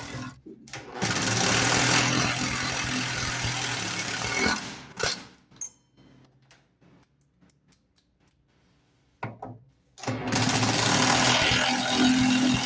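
A power screwdriver's motor runs in long stretches of a few seconds as it drives screws into the washing machine's drum assembly. It stops for a few seconds near the middle, with only faint clicks, then starts again.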